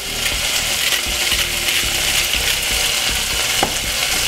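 Chopped peppers, spring onion, garlic and tomato frying in olive oil in a saucepan: a steady sizzling hiss.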